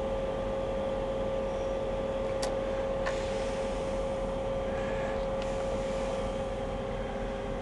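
Steady hum with one constant mid-pitched tone over an even background hiss, broken only by two faint clicks about two and a half and three seconds in.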